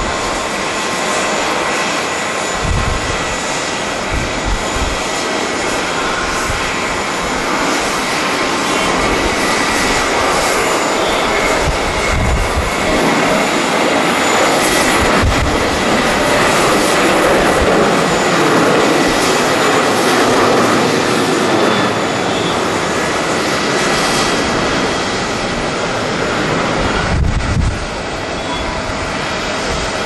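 Boeing 737 airliner's jet engines at takeoff thrust, a loud roar with a steady high whine. It swells to its loudest about halfway through, as the plane lifts off and passes, then eases as it climbs away. Gusts of strong wind buffet the microphone with low rumbles a few seconds in and again near the end.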